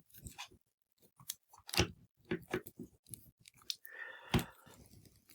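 Scattered clicks and crackles of hard plastic as the parts of a King Sphinx action figure are handled and pulled at, with a handful of sharper clicks among them.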